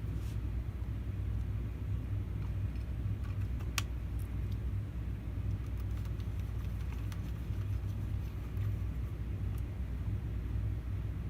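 Steady low rumble with a few faint clicks, and one sharper click about four seconds in.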